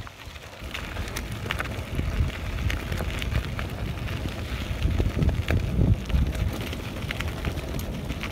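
Mountain bike riding down a gravel track: wind rumbling on the microphone, with tyres crunching on loose gravel and the bike rattling over bumps in frequent short clicks. The rumble grows louder about a second in.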